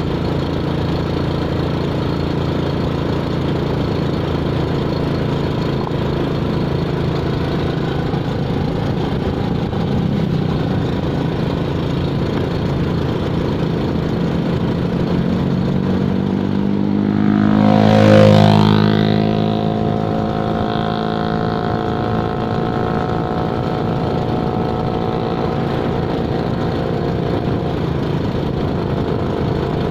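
A motor vehicle engine running steadily. About eighteen seconds in, another vehicle passes close by, swelling to the loudest point and then dropping in pitch as it goes away.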